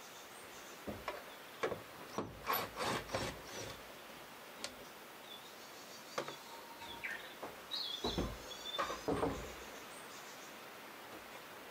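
Wooden window sash being handled and lifted out of its wooden frame: a run of wooden knocks and clatters, then another cluster about eight seconds in. A few bird chirps come in between.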